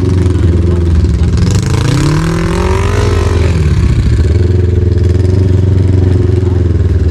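Kawasaki KRX side-by-side's 999 cc parallel-twin engine running at low speed while crawling over rocks. It revs up about a second and a half in, then drops back to a steady pull about two seconds later.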